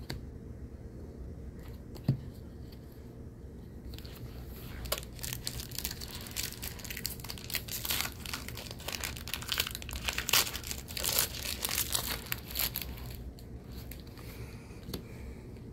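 A Magic: The Gathering March of the Machine draft booster pack's foil wrapper crinkling and tearing as it is opened by hand: a dense run of crackles over several seconds, loudest near the middle. A single sharp tap comes about two seconds in.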